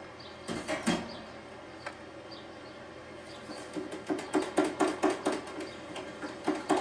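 A fork beating Yorkshire pudding batter in a jug: after a couple of clicks near the start, a fast, even run of taps against the jug begins about three seconds in and grows louder.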